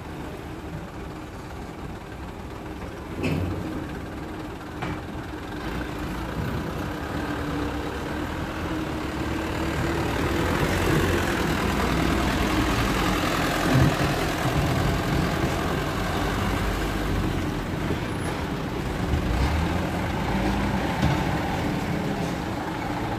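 Diesel engine of a light dump truck running, growing louder from about eight seconds in as the truck drives close past, then staying steady as it moves on. One sharp knock about three seconds in.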